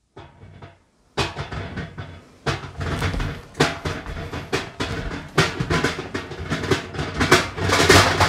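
A series of sharp percussive hits that starts about a second in, sparse at first, then comes faster and grows louder.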